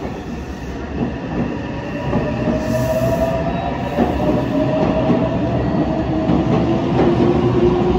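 Meitetsu 2200 series electric train pulling out of the platform. Its motors give a whine that slowly rises in pitch as it speeds up, over the rumble and clatter of the wheels, and it grows louder.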